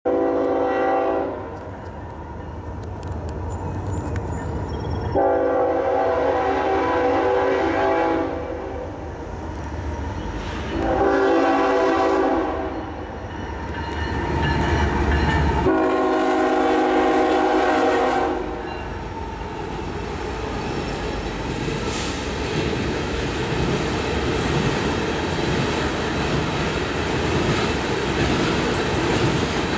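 Norfolk Southern freight locomotive horn sounding four blasts, the third shorter: the long-long-short-long warning for a grade crossing. The horn then stops and the coal train's locomotives and hopper cars rumble steadily past.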